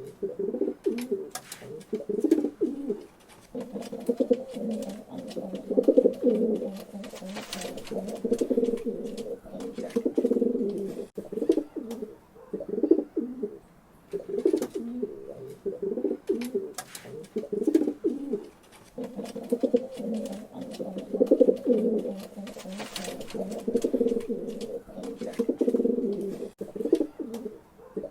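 Pigeons cooing, one low coo after another with barely a pause, over scattered short clicks and taps.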